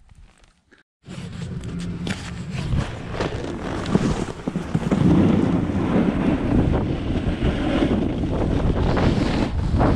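Wind rushing over a GoPro microphone as a snowboard slides downhill over powder snow. It starts suddenly about a second in and gets louder from about five seconds on, as the rider picks up speed.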